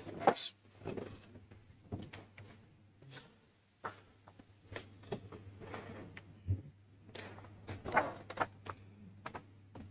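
Sheets of paper being handled and leafed through at a table close to the microphone: irregular rustles and light knocks, over a faint steady low hum.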